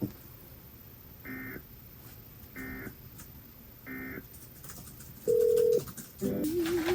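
Emergency Alert System end-of-message data tones: three short, identical bursts of high warbling digital tones about a second apart, marking the end of the severe thunderstorm warning broadcast. About five seconds in comes a short, loud steady beep, then another brief burst and a wavering tone starting near the end.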